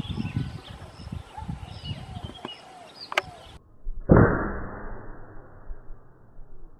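A few faint bird chirps, then about four seconds in a single air-rifle shot firing a 16-grain slug, a sharp report that dies away over about two seconds.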